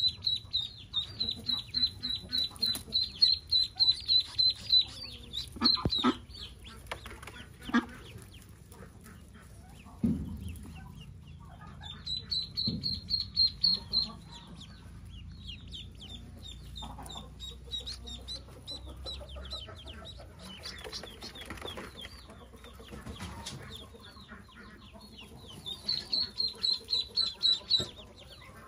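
Pekin ducklings peeping in rapid runs of high, evenly repeated peeps, coming in three bursts, with a few soft knocks in between.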